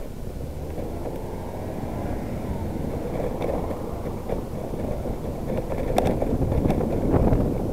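Wind rushing over a bicycle's handlebar-mounted camera microphone together with tyre and road noise, growing steadily louder as the bike gathers speed, with a few sharp rattles and knocks from bumps near the end.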